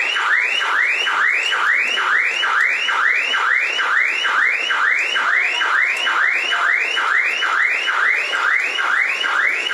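Electronic siren or alarm sounding a fast, repeating whoop, about two rising-and-falling sweeps a second, held steady throughout.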